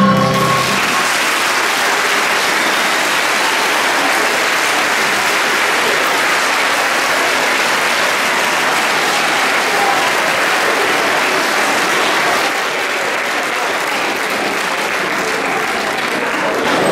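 A large audience applauding in a hall as the ensemble's last held note dies away in the first second. The clapping is steady and dense, easing off a little about twelve seconds in.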